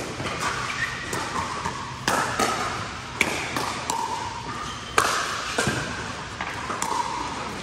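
Irregular sharp knocks and thuds, about a dozen, the loudest about two, three and five seconds in, with short squeaky or voice-like sounds between them.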